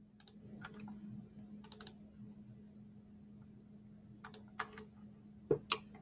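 Computer mouse and keyboard clicks: short, sharp clicks in small groups near the start and again in the last two seconds, with a quiet stretch between them. A faint steady hum lies beneath.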